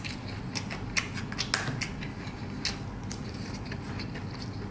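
Close-up eating sounds: a scattered run of short, sharp clicks and smacks, a dozen or so over a few seconds.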